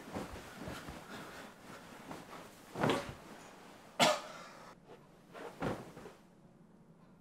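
Bedding rustling as a man tosses and thrashes about on a bed, with three short, sharp sounds about three, four and five and a half seconds in, the one at four seconds the loudest.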